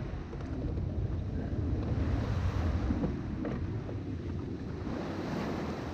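Wind buffeting the microphone with a low rumble, over the steady wash of sea water.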